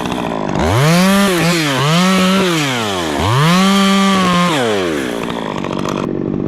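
Stihl chainsaw revved up to full speed and back down three times while limbing a white fir, with a short dip between the first two. It drops to idle near the end.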